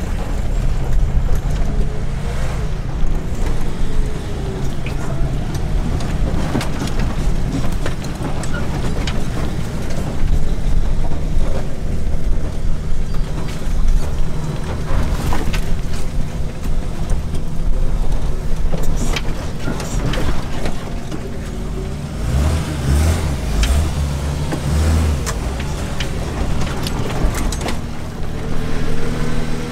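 Jeep engine running at crawling speed, heard from inside the cab as it works over slickrock, with scattered rattles and clicks from the body. A deeper low rumble swells for a few seconds in the last third.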